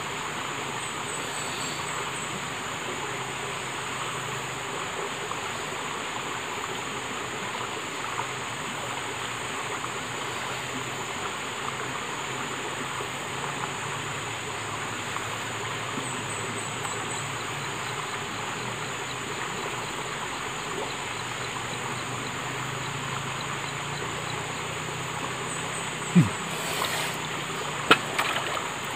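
Steady rush of a small forest stream under a constant high drone of insects, with a few short high trills now and then. A few sharp knocks near the end.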